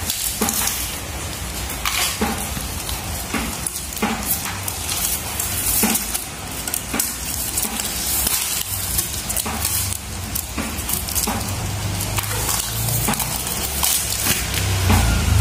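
Clear plastic wrapping crinkling and rustling as plastic-wrapped rolls are picked up and handled, a continuous run of irregular crackles.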